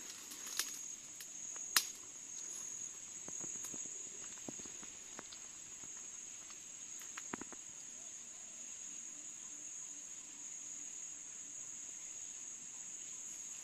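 Insects chirring: a steady high-pitched drone, with a few sharp clicks, the loudest about two seconds in.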